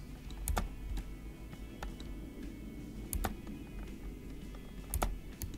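Computer keyboard keys and clicks, a handful of sharp clicks, some in pairs, over quiet background music.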